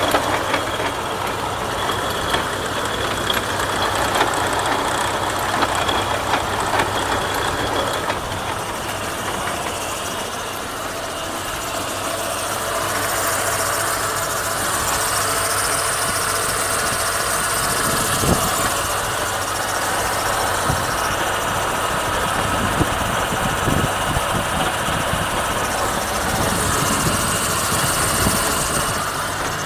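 Vehicle running with a steady mechanical drone and occasional short knocks, the sign of a knocking rear axle differential (final drive).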